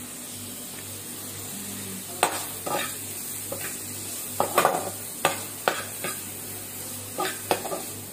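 Sliced tomatoes, carrots, onion and pepper sizzling in a frying pan while being stirred for a chicken sauce. From about two seconds in, a spoon scrapes and knocks against the pan in about a dozen irregular strokes over the steady sizzle.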